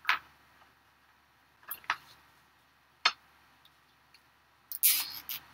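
Sharp plastic-and-wire clicks as black plastic zip ties are threaded through a metal wire wreath frame and a sign: single clicks at the start and a little after three seconds, a close pair just under two seconds in, and a short quick run of clicks near the end.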